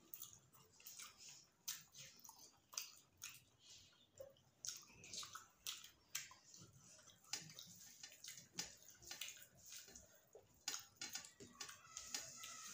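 Quiet close-up eating sounds: fingers mixing rice and chicken curry on steel plates, with chewing and wet mouth clicks, heard as a scatter of short sharp clicks at no steady rhythm.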